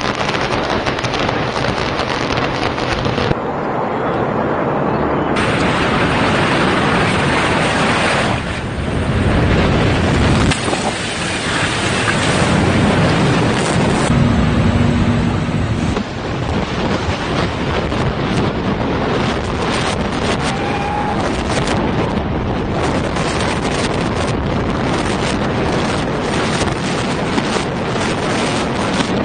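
Loud, continuous rumbling noise from controlled building demolitions, concrete structures collapsing with wind buffeting the microphone. The sound changes abruptly several times as one demolition gives way to another.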